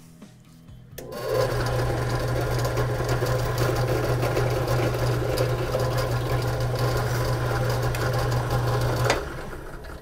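Bench drill press motor running with a steady hum while drilling a cable hole in a 3D printer's side panel. It is switched on about a second in and cuts off abruptly near the end.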